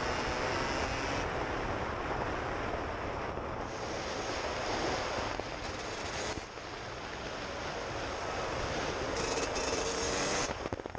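Suzuki RM125 two-stroke single-cylinder engine running under throttle as the bike rides a dirt track, with heavy wind rush on the helmet camera's microphone. The sound eases off about six and a half seconds in, then builds again before dropping away near the end.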